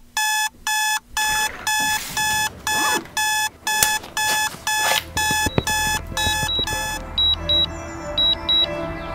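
Smartphone alarm beeping about twice a second, with rustling and a sharp click under it; the alarm stops about seven seconds in. Background music with short high pips then begins.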